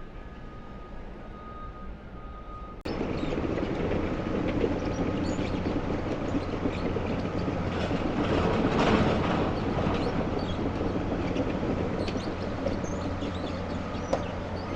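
Heavy demolition machinery working, a loud mechanical rumble with scattered clanks that swells and then eases. It starts abruptly about three seconds in, replacing a quieter steady background with a faint steady tone.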